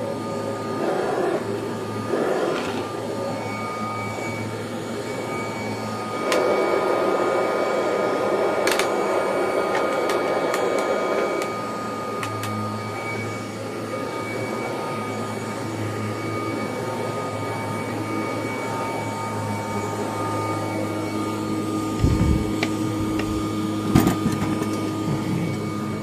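Kirby Heritage II Legend upright vacuum cleaner running steadily, with a constant motor hum and whine. For about five seconds in the middle the air rushes louder and rougher. Near the end come a few sharp knocks, and the owner thinks it has grabbed something that is stuck in it.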